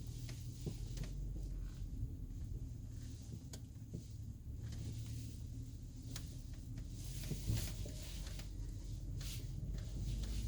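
Irregular knocking from a BMW 5 Series (F10): sharp single knocks at uneven intervals over a steady low rumble, the loudest about two thirds of the way in.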